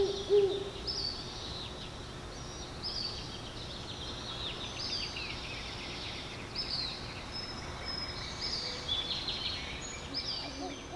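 Great horned owl hooting in low, deep notes right at the start and again near the end. Between the hoots, small birds keep up high chirps that fall quickly in pitch, repeated every second or so.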